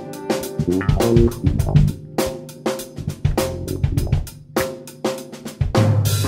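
Drum kit played busily in an instrumental jam with electric bass and electric guitar, the drum strikes coming thick and fast over the bass notes. Near the end a held low note comes in under the drums.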